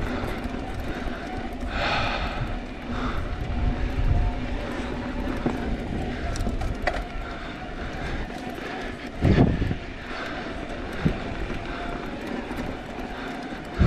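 Mountain bike riding fast down dry dirt singletrack: steady wind rush on a chin-mounted action camera's microphone over tyre rumble and bike rattle. A loud thump from a landing or hard hit about nine seconds in, and a smaller knock a couple of seconds later.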